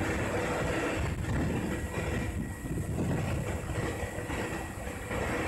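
Truck-mounted rotary snow blower at work: its engine and spinning blower running with a steady, heavy rumble as it clears snow.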